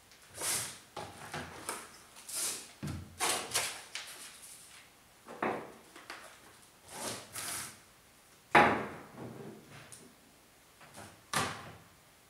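Unpacking and handling sounds: plastic wrapping crinkling and small welding accessories being picked up and set down on a metal-topped workbench, in irregular bursts, with one louder knock about two-thirds of the way through.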